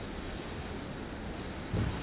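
Steady background hiss with a single dull thump near the end, a grappler's body hitting the mat during a roll.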